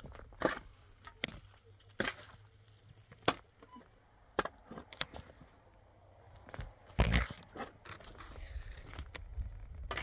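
Irregular crunches, scrapes and sharp knocks, with one heavier low thump about seven seconds in.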